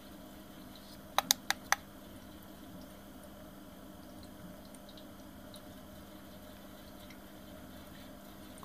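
Four quick clicks about a second in: buttons pressed on a handheld infrared thermometer, switching its reading from Fahrenheit to Celsius. A faint steady hum runs underneath.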